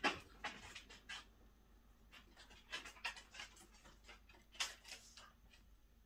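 Great spotted woodpecker pecking at peanuts in a mesh feeder: irregular short, dry taps in small clusters, the loudest right at the start.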